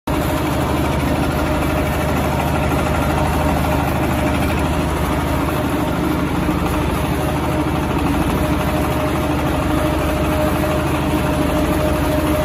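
Screw-type charcoal briquette extruder running steadily under load, a constant machine drone with a steady hum, as it pushes out continuous charcoal rods.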